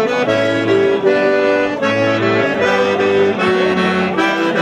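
Accordion playing a tune: a melody in held notes over changing bass notes.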